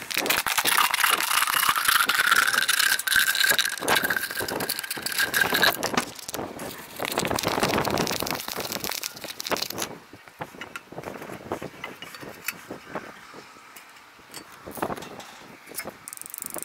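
Plastic bag crinkling as it is handled for the first several seconds, then a cloth rubbing on glass, then quieter scattered taps and clicks.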